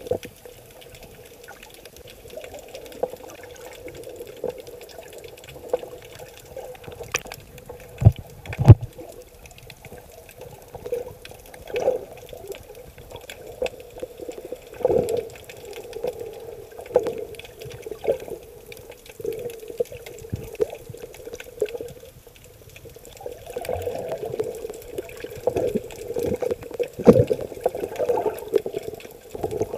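Muffled underwater rush and slosh of surf surging over shallow rocks, heard through an underwater camera, swelling and easing with the waves. A few sharp knocks stand out: two close together about eight seconds in and one near the end.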